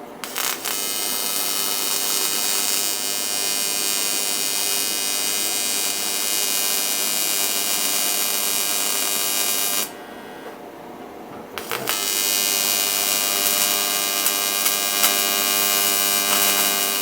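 TIG welding arc buzzing steadily while tacking a -10 AN steel fitting onto an aluminum oil pan. It runs as two long arcs: the first stops about ten seconds in, and the second strikes a couple of seconds later.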